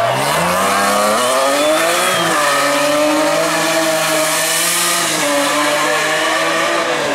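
Rally car engine accelerating hard, its pitch climbing for about two seconds before a gear change, then held at high revs as the car drives on.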